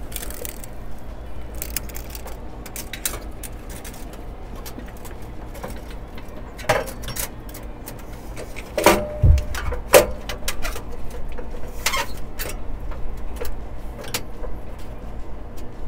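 Rattling clicks of a steel tape measure and hands moving among plastic water lines, with a few sharper knocks around the middle, over a steady low rumble.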